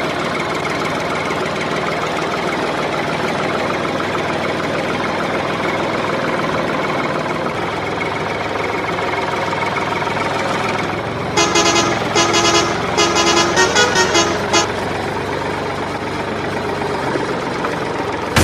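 A vehicle horn tooting in a rapid series of short blasts for about three seconds, starting about eleven seconds in, over a steady engine-like running sound.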